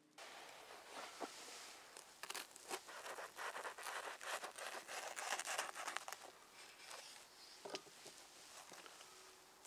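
A knife cutting through a crisp toasted sandwich made in a sandwich iron, on a wooden board: dense crunching and crackling of the toasted crust. It is loudest a couple of seconds in, then thins to occasional crunches.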